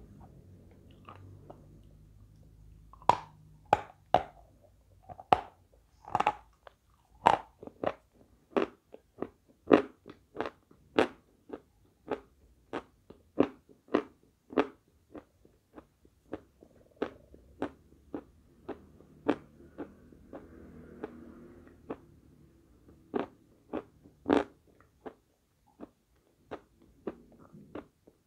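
Chunks of chalk being bitten and chewed close to a clip-on microphone: a long run of sharp, separate crunches, a little more than one a second, starting about three seconds in, with softer chewing between them.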